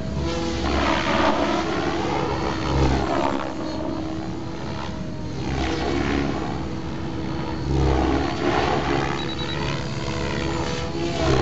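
Compass 7HV electric RC helicopter in flight: the steady whine of its motor and rotor under a whooshing rotor-blade noise. The blade noise swells in surges every couple of seconds, and the pitch bends up and down as the helicopter manoeuvres and the blades take load.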